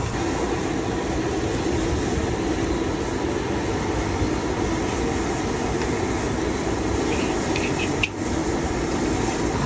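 Hot oil sizzling and bubbling steadily in a large wok as banana fritters deep-fry and strands of batter are drizzled in.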